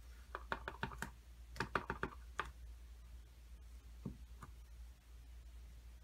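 Light clicking taps of a clear acrylic stamp block tapped on an ink pad and pressed onto paper: two quick runs of taps in the first couple of seconds, then a couple of single taps.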